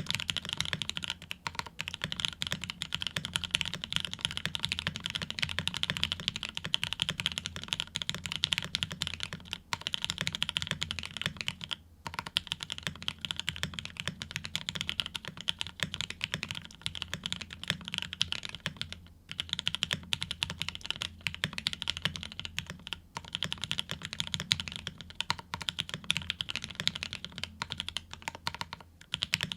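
Fast, continuous typing on a full-size CannonKeys Rekt1800 mechanical keyboard with lubed Pinoko switches, GMK keycaps, an FR4 plate, O-rings and polyfill. It is a dense run of keystroke clacks, with short pauses about 12 and 19 seconds in.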